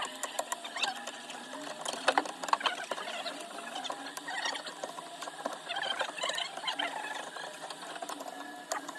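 Close-up small-tool work on a cracked iPhone 12 Pro Max back glass: a busy run of quick scratches, squeaks and light clicks, with a few sharper clicks about two seconds in.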